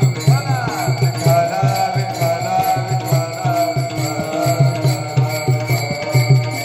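Varkari kirtan music: brass taal hand cymbals played in a steady fast rhythm by a group, over a low drum beat of about three strokes a second, with a sung melodic line.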